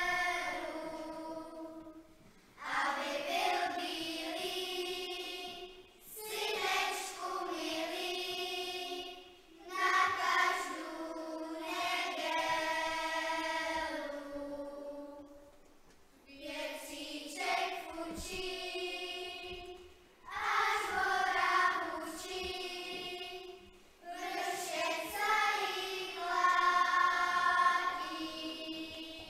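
Children's choir singing a song, line by line, with short breaks between the phrases.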